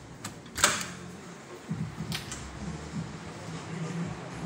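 Handling noise from a handheld phone camera: a few sharp clicks and bumps, the loudest about half a second in, over a low, uneven background murmur in a small room.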